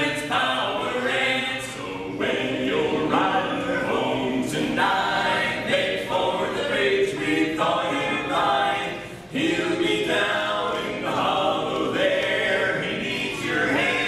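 Four male voices of a barbershop quartet singing together a cappella in close harmony, with a short break about nine seconds in.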